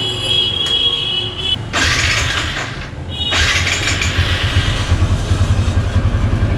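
TVS Apache RTR 160 single-cylinder engine starting and then idling with an even, rapid pulse, freshly flushed and filled with Motul 300V oil. Two noisy bursts come about two and three seconds in, before the idle settles.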